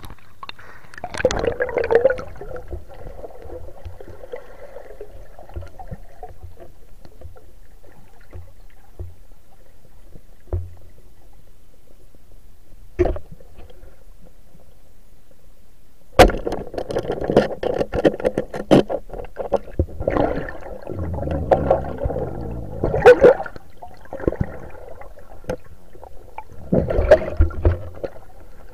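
Water gurgling and sloshing, recorded underwater, with scattered knocks. A sharp click comes a little past halfway, followed by several seconds of louder, irregular bubbling and rustling.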